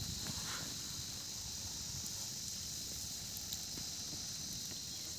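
Quiet outdoor background: a low steady hiss with a faint high steady tone and a few faint ticks.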